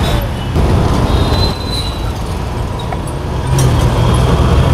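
Busy street traffic: a steady low rumble of heavy vehicles, with a thin high whine between about one and two seconds in.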